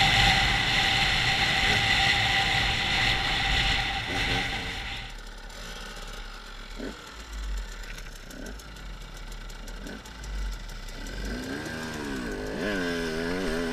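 KTM two-stroke enduro motorcycle heard from the rider's helmet. It runs hard under throttle for about five seconds, then drops to low revs, and near the end the revs rise and fall in quick blips.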